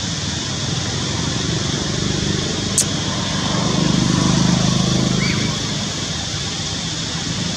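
Steady outdoor background hiss with a low hum that swells and fades in the middle, and one short, sharp click about three seconds in.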